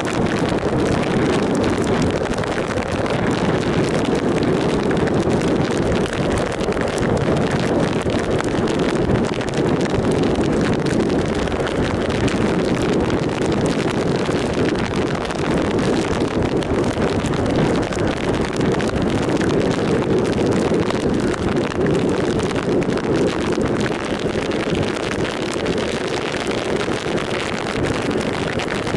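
Steady wind noise buffeting the microphone of a 2007 Triumph Sprint ST 1050 motorcycle riding at road speed, at a constant level.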